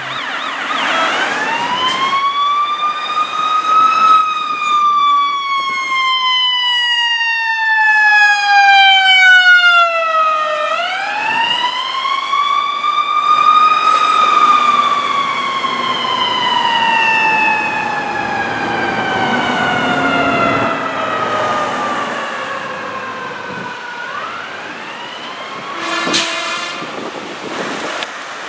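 Ambulance siren on a slow wail, rising and falling in long sweeps: up for about four seconds, down for about six, up again, then one long fall. The siren gives way to a short, sharp burst about two seconds before the end.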